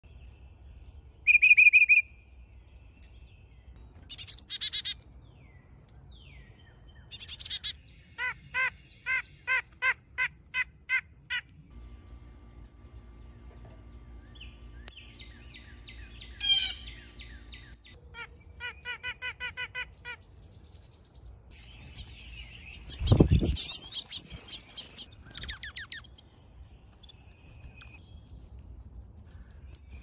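Several songbirds singing and calling in turn: clear whistled notes, a run of about ten quick repeated notes, trills and chirps. A loud lower-pitched sound about three-quarters of the way through.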